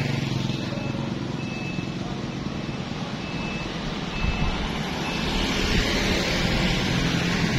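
A motor vehicle running, a steady low rumble with road and wind noise, with a few short high beeps in the middle.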